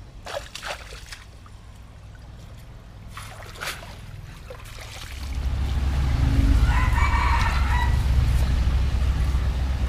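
A rooster crows once, about seven seconds in, over a steady low rumble that sets in about halfway through. A few faint short clicks come in the quieter first half.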